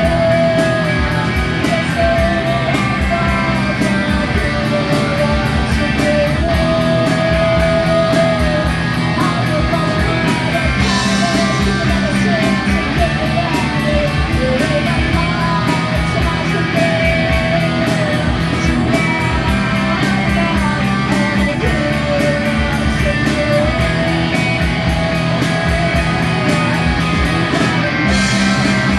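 A rock band playing a song live, guitar over a steady beat.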